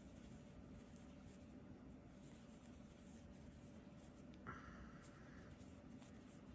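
Near silence: faint rustling of yarn drawn through stitches by a crochet hook, with a slightly louder soft rustle about four and a half seconds in.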